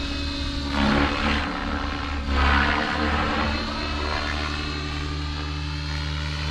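Align T-Rex 650X electric RC helicopter in flight: a steady rotor and motor whine that swells twice, about a second in and about two and a half seconds in, as it is thrown through aerobatic manoeuvres.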